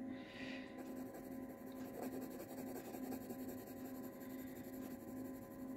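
Brown colored pencil shading lightly back and forth on small white card stock: faint, soft scratching of pencil lead on paper.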